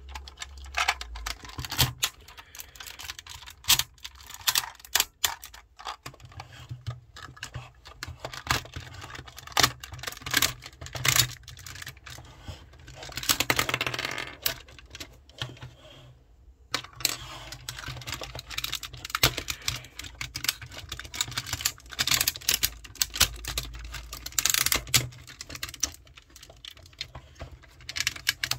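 Hard plastic Tobot transforming toy car being folded into its robot form by hand: irregular clicks and snaps as joints turn and panels lock into place. About halfway through there is a longer stretch of plastic parts rubbing and scraping together.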